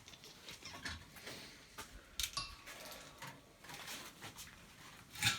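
Scattered light clicks and knocks, as of things being handled in a small garage, with a louder knock near the end.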